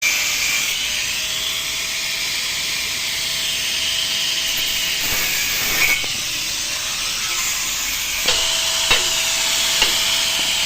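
A compressor running with a loud, steady hiss and a faint steady whine, with a few sharp clicks in the second half.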